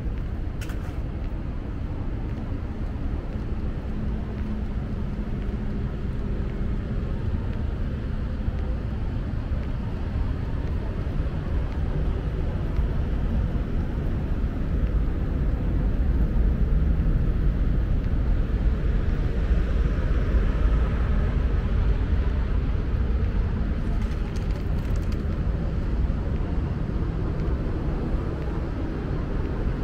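Steady low rumble of city street traffic, growing louder for several seconds a little past the middle and then easing off.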